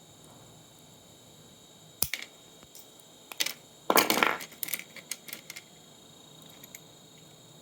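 Sharp clicks and a short rattling clatter of small hard parts and tools being handled during the teardown of an old monitor. The clatter is loudest about four seconds in, with scattered clicks before and after it.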